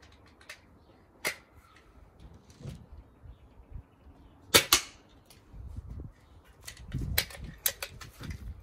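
SMK air pistol fired once, a sharp crack with a quick second snap about four and a half seconds in. A smaller click comes about a second in, and a run of clicks and low knocks fills the last three seconds.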